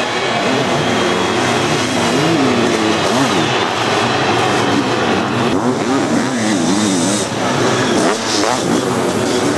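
Sidecar motocross outfits' engines revving hard as they race past, their pitch rising and falling over and over with throttle and gear changes, several engines overlapping.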